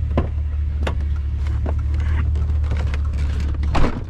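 A vehicle running with a steady low rumble, heard from inside, with a few sharp knocks or rattles, the loudest near the end.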